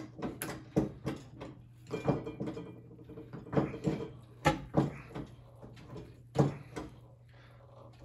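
Irregular metallic clicks and knocks from working a pull-type Porto-Power hydraulic ram and its chains against a bent motorcycle frame tube, with a short creak about two seconds in, over a steady low hum.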